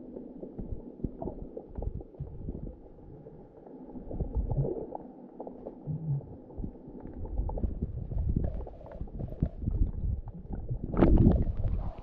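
Muffled sloshing and gurgling of shallow sea water stirred by wading feet, with irregular low bumps and a louder splash about eleven seconds in.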